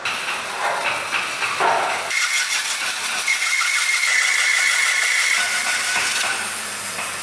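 Makita bandsaw cutting a block of Indian rosewood (sheesham): the saw running as the blade hisses through the wood, with a high steady whine in the middle of the cut.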